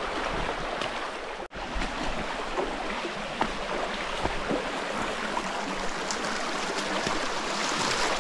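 River water flowing steadily over stones, an even rushing stream with small scattered splashes. It cuts out for an instant about a second and a half in.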